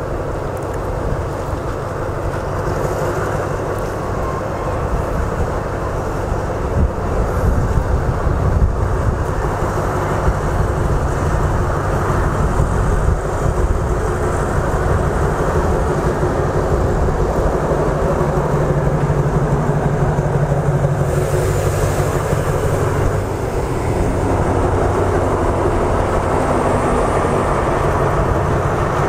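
Alsthom diesel-electric locomotive No. 4138, re-engined with an MTU diesel, pulling a passenger train away from the platform. Its engine works under load, growing louder over the first several seconds as it approaches, then holds steady as it passes close by.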